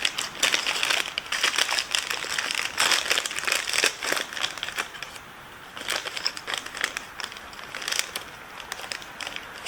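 Plastic packaging crinkling and crackling as a new wiring connector is pulled out of it. The crackles are irregular, ease off about halfway through, then resume.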